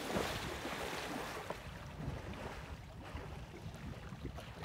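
Water splashing around an elephant wading in a waterhole: a burst of splashing that dies away after about a second and a half. A low wind rumble on the microphone runs underneath.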